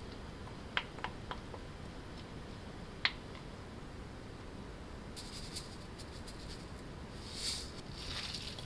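Quiet food-prep handling: a few light clicks of a wooden spoon against a glass bowl around the first second and a single sharper click a couple of seconds later, then light crackling and, near the end, the soft wet rustle of sauced buckwheat noodles and vegetables being tossed by a gloved hand in a glass bowl.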